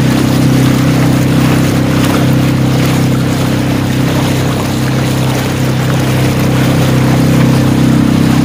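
A motorboat under way: its engine runs at a steady drone while water rushes and splashes along the hull.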